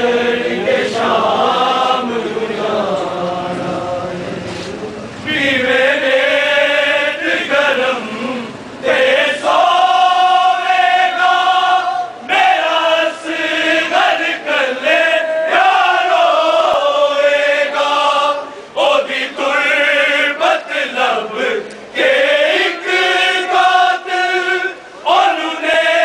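Men chanting a noha, a Shia mourning lament, in long drawn-out sung phrases with short breaks between them.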